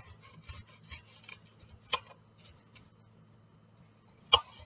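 Kitchen knife cutting through an onion on a plastic cutting board. A quick run of small crisp cuts fills the first three seconds, with two louder knocks of the blade against the board, about two seconds in and near the end.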